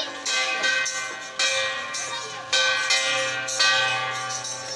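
A large metal bell struck about once a second, each stroke ringing on and fading before the next.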